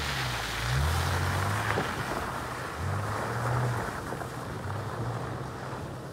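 Subaru Outback engine revving up and easing off several times as the car pulls away over wet, muddy ground, with tyre and road noise. It fades as the car draws off.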